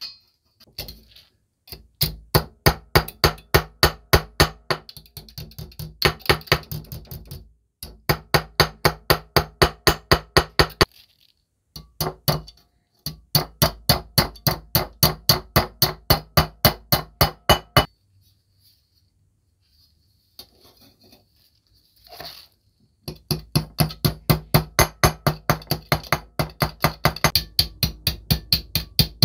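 A hammer striking a mouse trap's sheet-metal base plate against a brass block, reshaping the bent plate, in fast runs of sharp ringing metal-on-metal blows, about four or five a second, with brief pauses between the runs.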